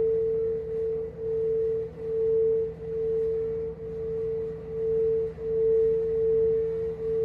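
Crystal singing bowl sounding one sustained pure tone, which swells and dips in loudness about once a second.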